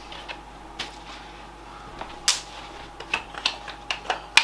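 Scattered light clicks and scrapes of hands working at the case of a Dell OptiPlex 3010 desktop, picking off an old sticker. The sharpest click comes about two seconds in, and a cluster of smaller ones follows toward the end.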